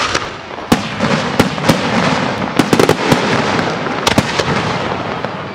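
Aerial fireworks bursting: a quick, irregular series of sharp bangs over a steady hiss and crackle, easing off near the end.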